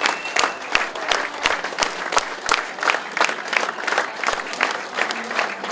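A small crowd applauding, with separate individual claps standing out throughout.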